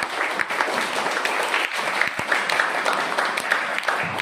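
Students applauding: steady clapping from many hands.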